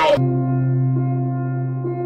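A single sustained low electronic tone with steady overtones, held without change like a drone in a music bed.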